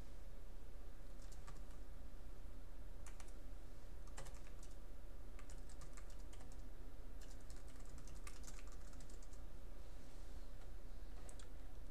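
Faint, scattered clicks of a computer keyboard, some in short runs, over a steady low hum.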